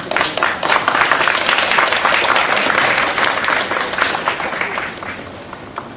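Audience applauding: a burst of dense clapping that begins at once, holds for about four seconds and then tapers off near the end.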